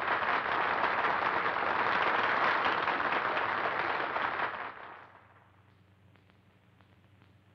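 Audience applauding with steady, dense clapping that dies away about five seconds in.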